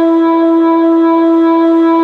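Whelen WPS-2906 electronic outdoor warning siren sounding a loud, steady tone that holds one pitch without rising or falling.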